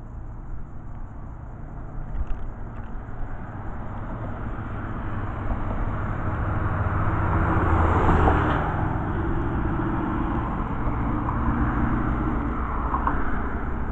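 Road traffic passing on a bridge: tyre noise and engine hum swell to a peak about eight seconds in as a heavy dump truck goes by, with a car passing near the end.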